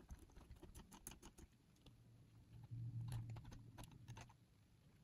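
Faint, scattered small clicks and taps of a screwdriver and fingers on the metal and plastic parts of a cassette player's tape mechanism as its spring-loaded idler carriage is worked loose and lifted out.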